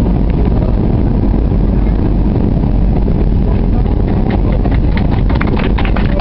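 Jet airliner cabin noise on the landing roll: a loud, steady low rumble of the engines and the wheels running along the runway. From about four and a half seconds in, a run of sharp clicks sounds over the rumble.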